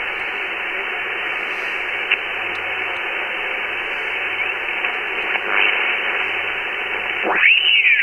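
Receiver hiss and band noise from an Icom IC-7200 HF transceiver's speaker as it is tuned across the 20 m amateur band. Near the end, a single-sideband signal comes in and slides down in pitch as the dial is turned past it.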